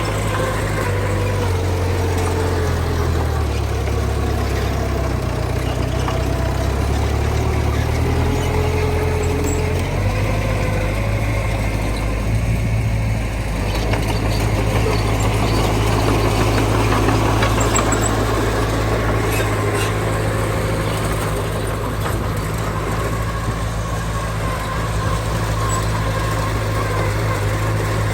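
Diesel engines of heavy earthmoving machinery running steadily, the engine note shifting about ten seconds in.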